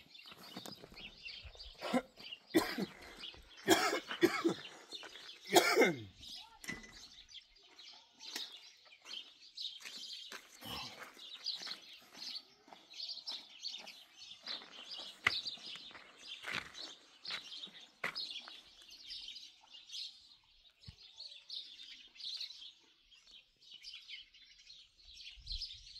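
Small birds chirping continuously, with several loud sharp knocks about two to six seconds in, the last followed by a short sound falling in pitch.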